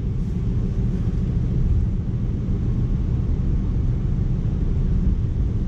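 Steady low rumble of road and engine noise inside a moving car's cabin, with tyres running on a rain-wet road.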